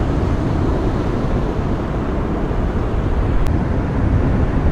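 Steady wind buffeting the microphone over the rumble of surf.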